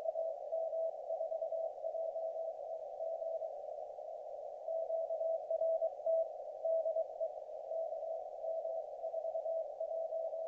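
Morse code tone of about 650 Hz keyed in dots and dashes from a YouKits HB-1B QRP transceiver. It sits over a steady narrow band of receiver hiss from the CW filter. The sending breaks off for about a second a third of the way in, then carries on.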